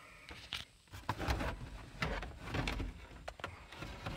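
Light clicks, knocks and rustling of a plastic dash bezel being handled and worked free around the steering column, a sharp click every half second or so.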